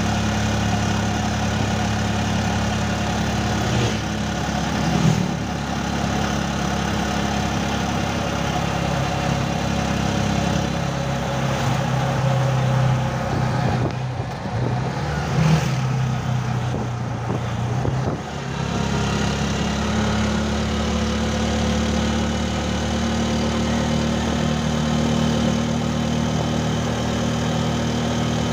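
Vehicle engine running with road noise, heard from inside a moving vehicle; the engine note shifts about midway and then settles back to a steady drone.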